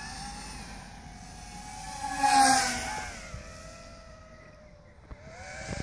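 Small FPV racer's electric motors and propellers whining as it flies overhead. The pitch wavers with the throttle, swells to its loudest in a close pass about halfway through, then drops in pitch and fades as it moves away.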